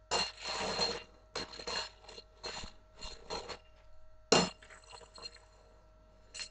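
Two black Savannah kittens play-fighting on a wooden floor: irregular scuffles and scrambles with small clinking sounds, and one sharp knock about four seconds in.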